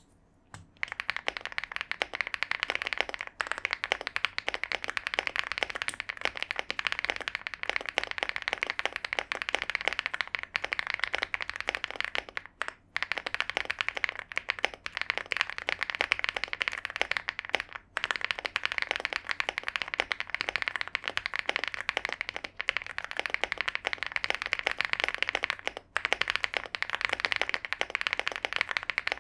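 Fast typing on an Epomaker Galaxy70 gasket-mounted mechanical keyboard with factory-lubed Huano Blossom Odyssey linear switches and a polypropylene plate: a dense, continuous run of keystrokes. It breaks off briefly about 13, 18 and 26 seconds in.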